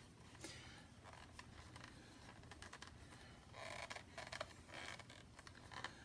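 Faint scraping and light clicking of a metal shower-hose nut being threaded by hand onto a handheld shower head.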